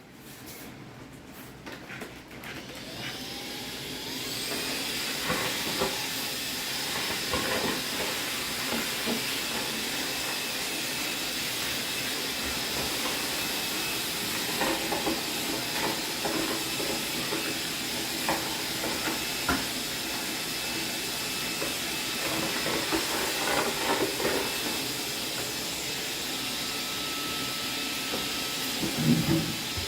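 A steady, airy hiss from an electric appliance that spins up about three seconds in with a short rising whine, then runs on evenly. Light scrapes and knocks come through on top of it.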